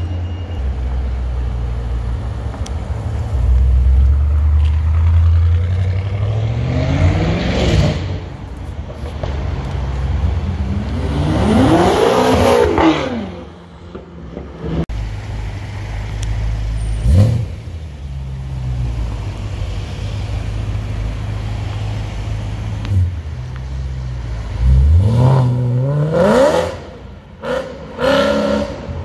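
Performance car exhausts as several cars accelerate away in turn, the engine note climbing with the revs. One sweeps past loudly about twelve seconds in, a short sharp rev comes a few seconds later, and near the end another engine revs hard in quick climbs broken by short gaps.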